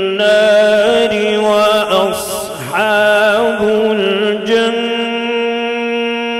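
A man reciting the Quran in the melodic, drawn-out mujawwad style, holding long sustained notes. About two to three seconds in, his voice breaks into a run of quavering ornaments before settling back onto a held tone.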